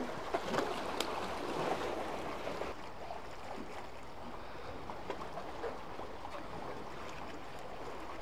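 Sea water washing and lapping among concrete tetrapods, a steady wash with a few light clicks in the first seconds.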